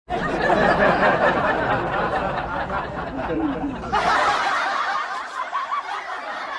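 A crowd of passengers chattering and laughing in a train carriage, over a low rumble that drops away about four seconds in.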